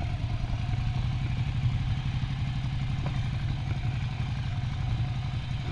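Ducati Monster 797's air-cooled 803 cc L-twin idling steadily through a Termignoni race exhaust with the dB killer removed.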